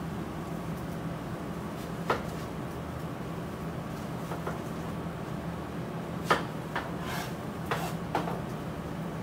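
Several sharp knocks and clicks of kitchen items being picked up and set down, scattered through the stretch, over a steady low hum.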